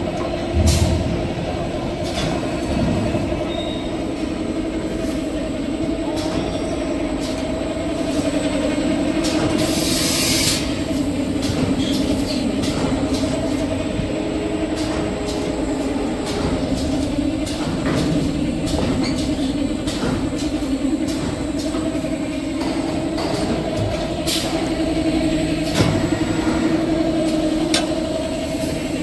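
Automatic kitchen towel paper log saw cutting machine running: a steady mechanical hum with frequent clicks and knocks, and a short hiss about ten seconds in.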